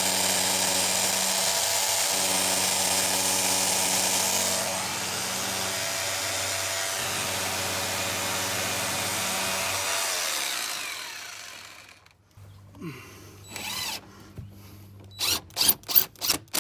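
Power drill boring into brick for a Tapcon masonry screw, running steadily, easing off a little about five seconds in and winding down after about ten seconds. A few short, sharp sounds follow near the end.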